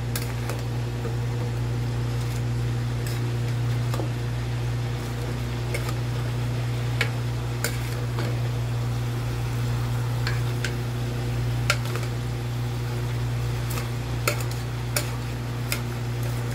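Wooden spatula stirring raw mutton, onions and spices in an aluminium pressure cooker, with irregular scrapes and knocks against the pot, over a steady low hum.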